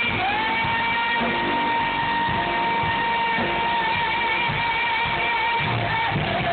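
Live rock band music played through a stage PA, with one high note held for about six seconds that wavers slightly near the end.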